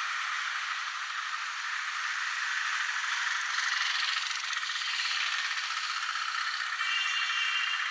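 Fast, continuous rattling patter of a barber's hands tapping on a customer's head during a head massage.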